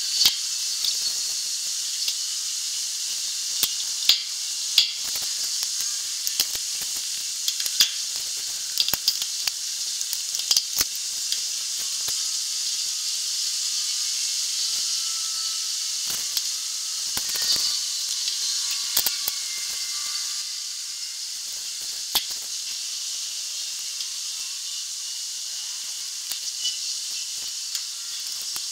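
A steady high hiss with scattered sharp metallic clicks and knocks from a hydraulic floor jack being worked under a steel shipping container.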